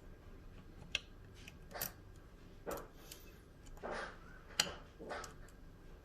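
Lock pick and tension wrench working the pins of a pin-tumbler lock: a series of short metallic clicks and scrapes, roughly one a second.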